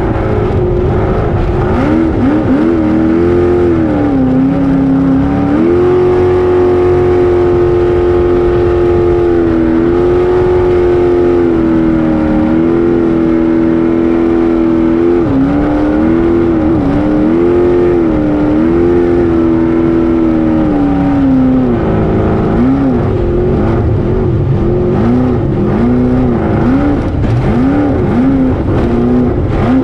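Racing jet boat's engine at high revs, heard from on board. Its pitch holds steady for long stretches, then rises and falls quickly over and over as the throttle is worked in rough water, over a steady rushing noise.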